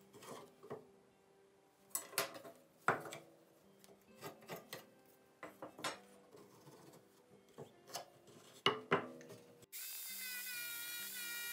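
Pencil scratching and a steel ruler and square tapping and sliding on a rough pallet board, with a few sharp knocks. About ten seconds in, a jigsaw starts abruptly and runs steadily, cutting the old pallet wood.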